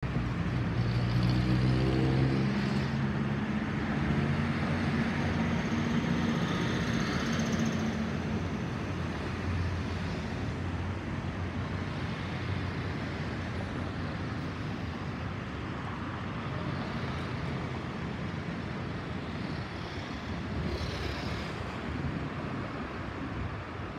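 Jet roar of an Airbus A320-216's CFM56 engines as it climbs past at altitude: a steady rushing that is loudest at first and slowly fades. Over the first couple of seconds a lower engine tone drops in pitch, then holds steady until about eight seconds in.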